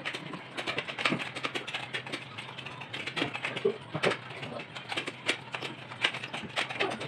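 Utensils clinking and scraping on plates as several people eat together: a run of sharp, irregular clicks, several a second.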